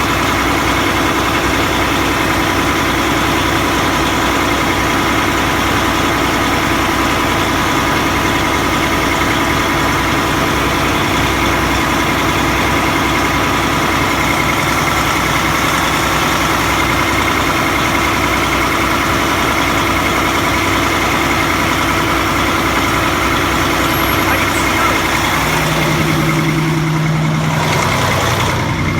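Diesel engine idling steadily, exhaust leaking at the diesel oxidation catalyst (DOC) housing. A lower hum comes in briefly near the end.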